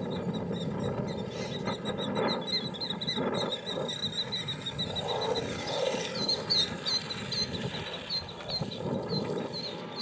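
Killdeer calling in a squabble between several birds: a fast run of short, high, sharp notes for the first few seconds, then slower separate upslurred notes, about two a second, in the second half. A steady low background rumble lies under the calls.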